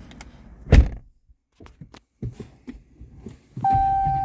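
A single thunk inside the car about a second in, then a few faint clicks. Near the end a steady electronic chime tone starts as the car's ignition comes on.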